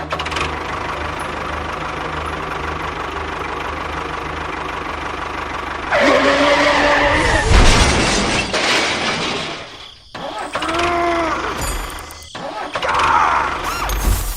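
A small engine running steadily for about six seconds, then a louder, busier stretch of mechanical noise with high, wavering tones over it that rise and fall several times.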